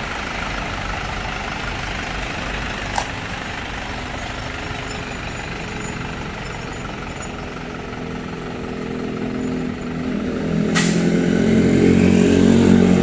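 Diesel engine idling steadily, growing louder in the last few seconds, with a single click about three seconds in and a short hiss near the end.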